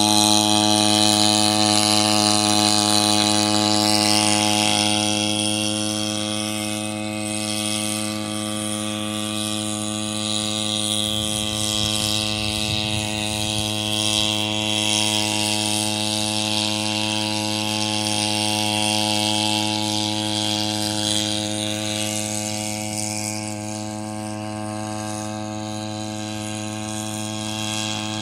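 Hybrid agricultural spraying drone in flight: its fuel-powered generator engine and propellers give a steady hum with a whirring hiss over it, and the sound gets gradually quieter as the drone moves farther off.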